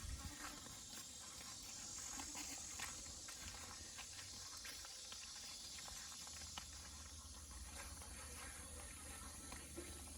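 Faint outdoor ambience: a steady high insect hiss, with scattered soft clicks and footfalls from people walking.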